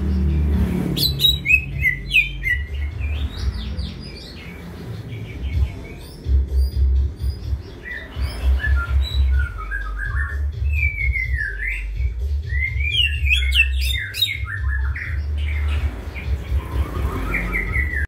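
Male greater green leafbird (cucak hijau) singing in bursts of fast, sweeping chirps and warbled notes, with short pauses between phrases.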